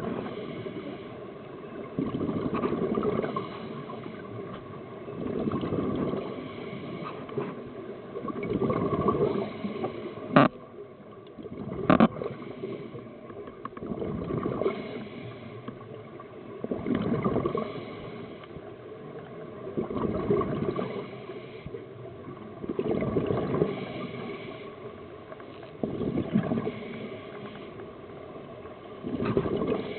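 Scuba diver's breathing through a regulator underwater, the exhaled bubbles swelling up about every three seconds with quieter breathing noise between. Two sharp clicks come about ten and twelve seconds in.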